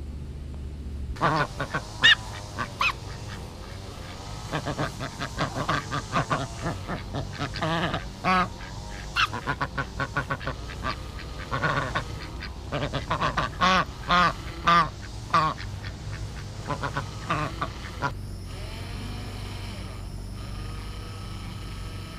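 A flock of white domestic ducks quacking repeatedly in many short, loud calls, several at a time. The calls stop about 18 seconds in and a steady hum takes over.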